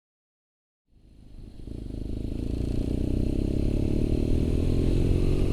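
BMW R nineT's boxer-twin engine running on the move, fading in after about a second of silence, its pitch climbing slowly as the bike gathers speed.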